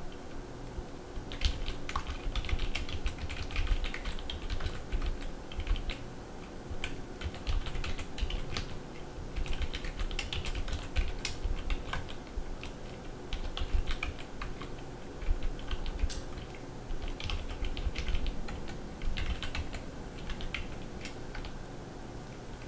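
Computer keyboard being typed on: quick, unevenly spaced keystrokes in runs with short pauses, over a faint steady low hum.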